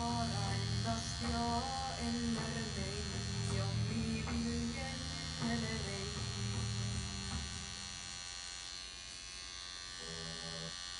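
Pen-style tattoo machine buzzing steadily as the needle works the skin, with music playing in the background that fades out about eight seconds in.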